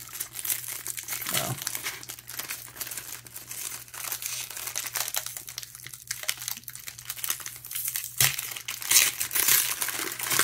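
Foil trading-card pack wrapper crinkling in the hands as it is squeezed and worked at its crimped seal, getting louder near the end. A faint steady low hum sits underneath.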